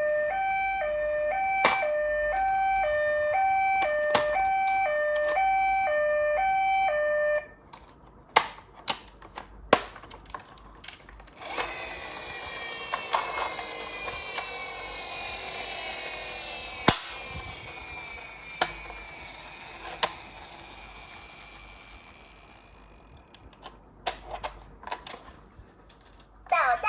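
A toy ambulance's electronic two-tone hi-lo siren, alternating between two pitches about once a second, for about seven seconds. It stops, followed by scattered plastic clicks and knocks. Then a toy car runs with a long whirring rattle that slowly fades, and a few more clicks near the end.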